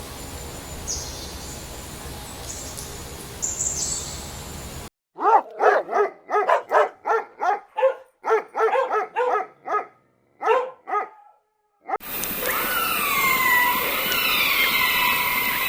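A dog barking in a quick series of separate barks, about a dozen or more. Before it, birds chirp over steady outdoor noise. After it comes a chorus of overlapping calls that slide downward in pitch.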